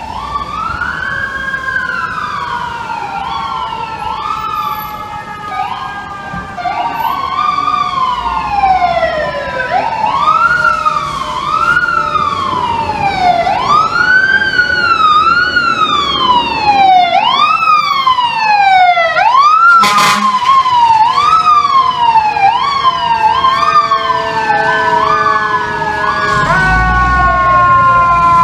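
FDNY fire truck sirens wailing, sweeping up and down in pitch about once a second, getting louder as the apparatus comes closer through traffic.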